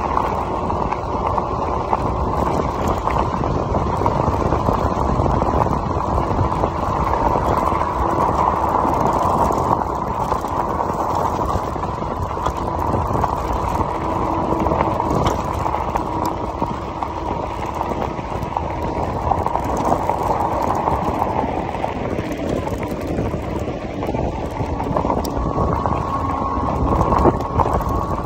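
Steady rush of wind on the microphone mixed with fat tyres rolling over a gravel road, from a VoltBike Yukon 750 electric fat-tire bike being ridden along. A faint steady whine comes in near the end.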